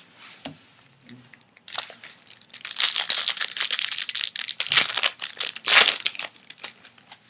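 Foil baseball card pack wrapper crinkling and tearing as it is opened. It is a dense crackle from about two seconds in, loudest near the end.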